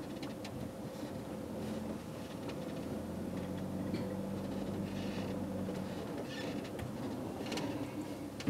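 Camper van's engine running low and steady as it rolls slowly over gravel, heard from inside the cab, with a low hum and faint crackles of gravel under the tyres.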